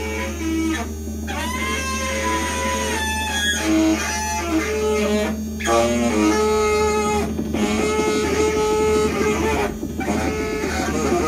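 Free-improvised noise music: a saxophone plays held, bending notes in phrases broken by short gaps every couple of seconds, over a steady low amplified drone.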